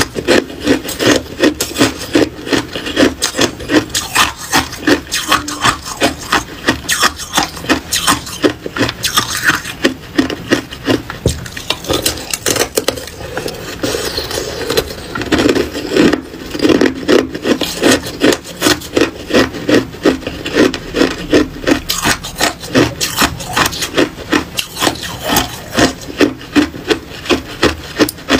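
Hard ice being chewed close to the microphone: a steady run of crisp crunches, about three a second, as a ring-shaped block of ice is bitten and ground between the teeth.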